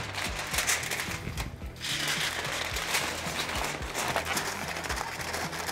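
Heavy-duty aluminium foil crinkling and rustling in irregular bursts as it is folded and pressed around a smoked brisket, with background music.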